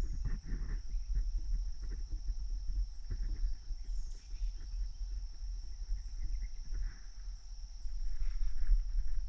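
Footsteps on the forest floor, irregular low thuds and rustles of someone walking through brush, under a steady high-pitched drone.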